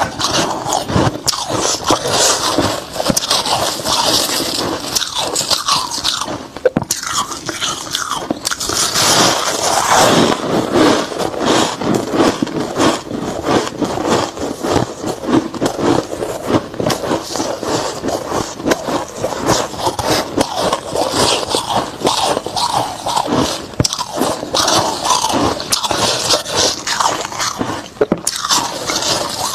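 Soft freezer frost being chewed close to a clip-on microphone: continuous crisp crunching and squeaky scraping of the packed ice crystals, with short breaks about seven seconds in and near the end.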